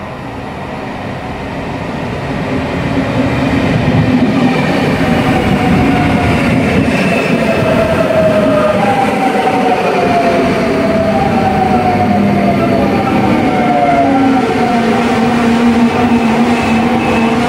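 Trenord double-deck electric suburban train pulling into the platform and slowing to a stop. It grows louder over the first few seconds, then its motors give a whine that falls in pitch in several steps as it brakes.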